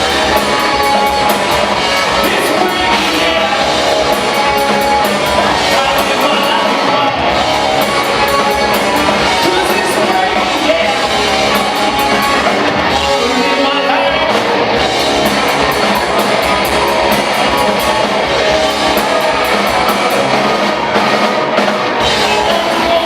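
Rock band playing live: electric guitars, drum kit and a singer, loud and continuous.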